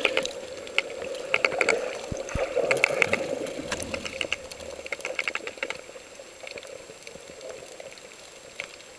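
Underwater ambience picked up by the camera: a steady water noise with scattered clicks and crackles, growing quieter in the second half.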